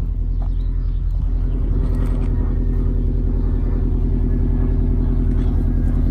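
Car engine and road rumble, running steadily and getting a little louder over the first second or two.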